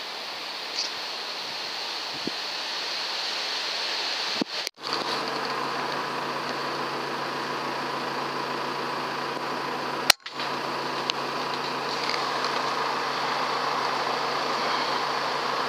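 Steady hiss of a rifle-scope camera's microphone, with a faint steady electronic whine, broken twice by abrupt cuts. A single sharp click comes just before the second cut.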